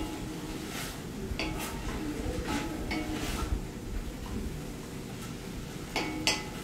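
A wooden spoon stirring and scraping a shredded salt-cod mixture in a cast-iron pot, with scattered light clacks against the pot and a sharper knock near the end.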